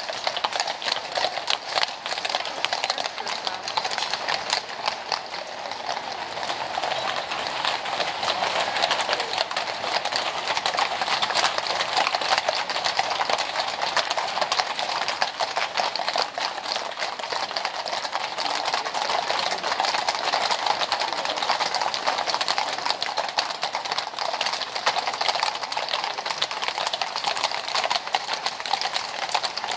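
Hooves of a column of cavalry horses walking on brick paving: a dense, continuous clatter of many overlapping clip-clops.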